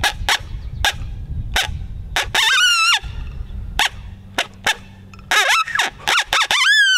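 Primos Hot Dog open-reed coyote howler blown as a coyote challenge howl: a string of short, sharp barks broken by two brief wavering howls, the second falling off in pitch near the end. It is pitched for a mature coyote and chopped short, a challenge bordering on a warning howl.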